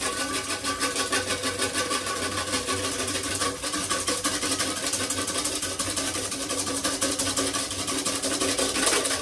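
Balloon whisk beating egg whites in a tipped stainless steel bowl, the wires rattling and scraping against the metal in a fast, even rhythm of many strokes a second. The whites are still at the frothy, foamy stage.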